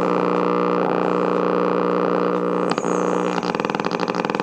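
Old tube radio motorboating: a loud, steady droning hum from its speaker that breaks into a fast putt-putt pulsing about three seconds in, just like a motorboat. The owner suspects its filter capacitors.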